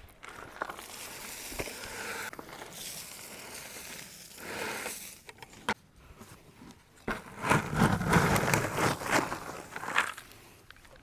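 Loose wood-chip mulch crunching and scraping as it is scooped up and dumped with a 5-gallon bucket, loudest for a few seconds near the end.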